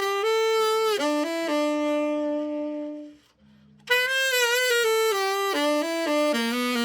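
Freshly overhauled Selmer Mark VI tenor saxophone playing a melodic phrase. A long note about halfway through fades out, a short breath pause follows, and a new phrase starts, over a faint low backing accompaniment.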